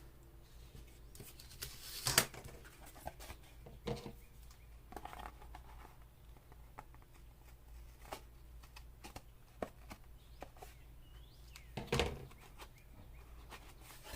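Scattered light clicks, taps and rustles of cardboard and hand tools being handled while a cut edge is trimmed straight, with two louder knocks about two seconds in and near the end, over a steady low hum.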